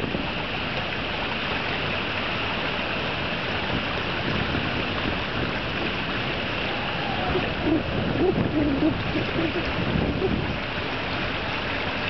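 Steady wind rushing over the microphone, with water lapping. Between about seven and ten seconds in, a few brief low tones rise over it.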